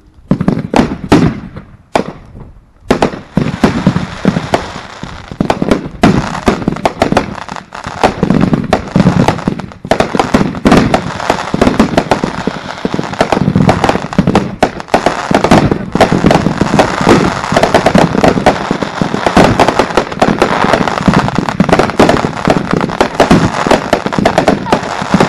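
Aerial fireworks going off. A few separate bangs come in the first couple of seconds, then from about three seconds in a dense, continuous barrage of launches, bursts and crackling from several fireworks firing at once.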